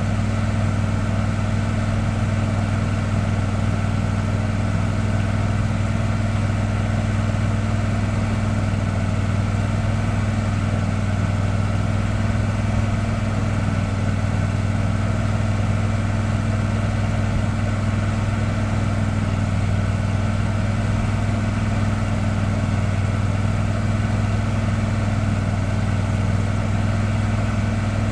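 An engine running steadily at one constant speed, a continuous low hum that never changes pitch.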